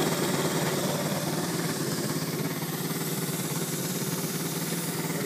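125cc air-cooled horizontal single-cylinder motorbike engine of a custom go-kart idling steadily, with an even pulsing beat.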